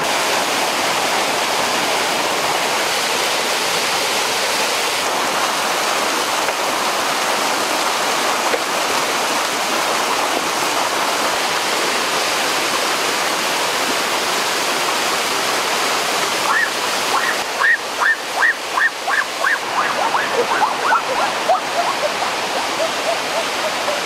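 Steady rush of a small waterfall and stream. About two-thirds of the way through, a rapid run of short, high notes starts and steps gradually down in pitch.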